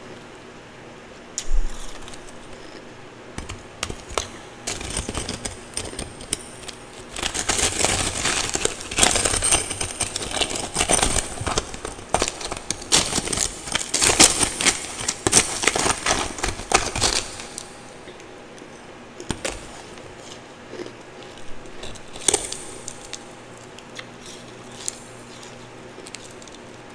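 Metal spoon scraping and stirring through twice-refrozen powdery ice in a plastic tub, giving a dense run of crunchy scrapes and clicks from about 7 to 17 seconds in, with scattered crunches before and after.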